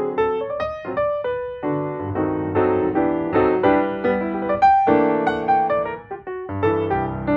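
Background piano music: a melody of quick, ringing notes over lower chords.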